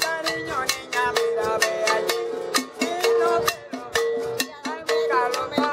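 Cuban street band playing live: a man singing over a strummed acoustic guitar, hand drums and maracas, with sharp percussion strokes keeping a steady beat.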